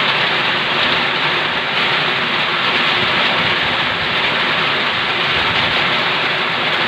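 Heavy rain pouring down steadily, an even, dense hiss.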